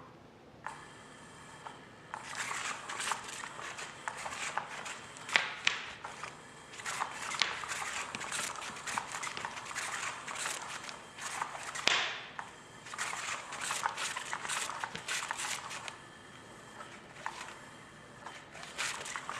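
A cat playing with a toy: bursts of quick scratching, rattling clicks and rustles with a few sharper knocks. They die down briefly near the end, then start again.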